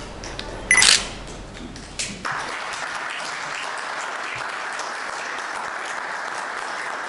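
A camera shutter snaps once, about a second in. About two seconds in, an audience breaks into steady applause.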